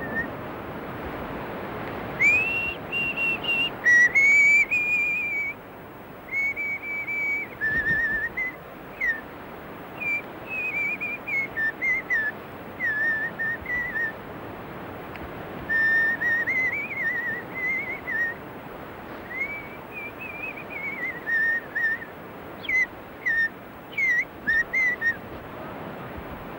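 A person whistling a tune in phrases of held and sliding notes, over a steady background hiss.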